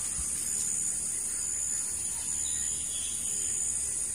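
Steady high-pitched insect chorus, a continuous even drone.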